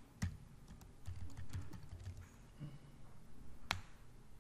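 Computer keyboard keys clicking as a command is typed, with one sharper, louder keystroke near the end as the command is entered.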